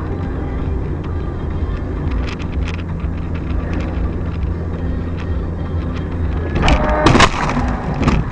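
Steady engine and road hum inside a moving car. About seven seconds in comes a loud impact and crunch as a pedestrian strikes the windshield and shatters the glass, with another knock about a second later.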